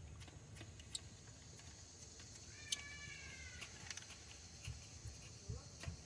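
A single animal call about a second long, a little over two seconds in, over a few faint scattered clicks.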